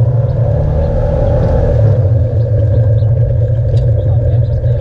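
Off-road vehicle's engine running steadily as it drives along a dirt trail, a deep, even drone.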